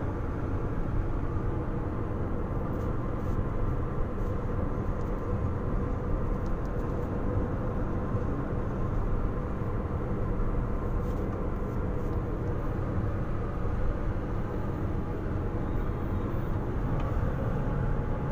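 Steady engine and tyre noise of a car on the move, heard from inside the cabin as an even low rumble.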